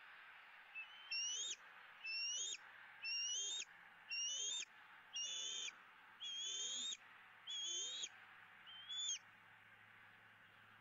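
Bald eagle calling: a series of eight short, high squealing calls, about one a second, each ending in an upward sweep.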